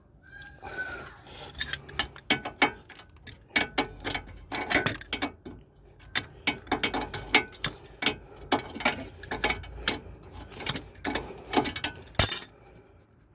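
Ratchet spanner clicking in short irregular runs as a bolt on the front hub assembly is worked loose, with one louder knock near the end.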